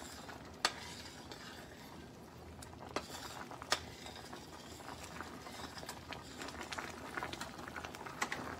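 Yogurt-and-buttermilk potato curry bubbling in a wide metal pan as a metal spatula stirs through it, with a few sharp knocks of the spatula against the pan.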